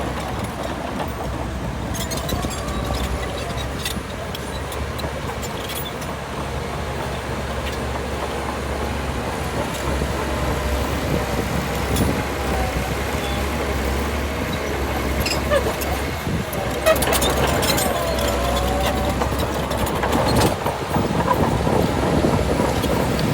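A Shantui bulldozer's diesel engine running steadily under work, with a wavering whine that comes and goes and scattered clanks, the loudest one about two-thirds of the way through.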